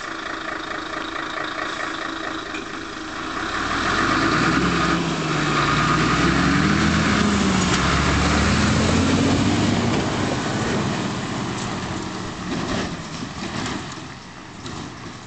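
Mercedes-Benz Actros 2641 truck-and-trailer's V6 diesel running steadily at first, then pulling away and driving past. Its engine pitch rises, dips and rises again as it accelerates, and it is loudest as it passes about halfway through. It then fades as the truck drives off.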